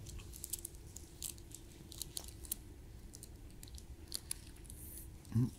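A communion wafer being chewed: faint, scattered crunching clicks.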